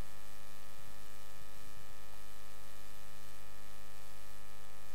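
Steady electrical mains hum, a constant buzz made of many stacked tones.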